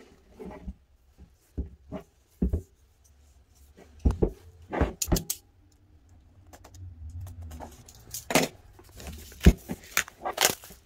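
Plastic shrink wrap being cut and pulled off a boxed album: scattered crinkling and rustling, with a few short knocks and clicks as the box is handled on the table.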